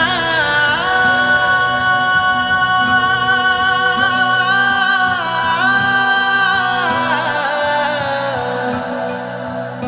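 Song music: a male voice holds long, wordless notes that slide from pitch to pitch over a steady low drone.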